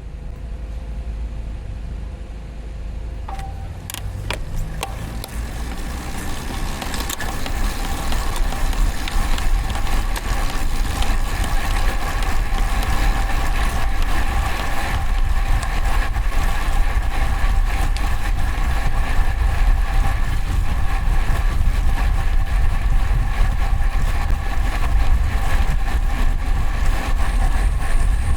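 Road bike on the move: wind rumble on the external microphone and tyre noise, building over the first several seconds as speed rises and then holding steady, with a steady whine on top.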